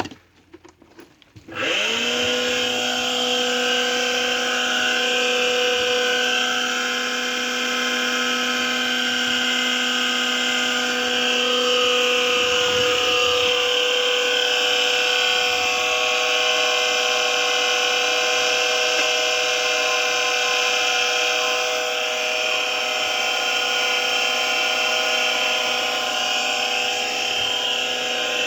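A Kawamoto NF2-150SK well pump's electric motor is switched on after a few clicks. It spins up and runs steadily with a whine of several steady tones, and a lower hum drops out about halfway through. The seller calls this motor noise abnormal.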